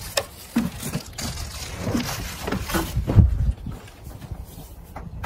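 Footsteps with a few light knocks and clicks, and a dull thump about three seconds in.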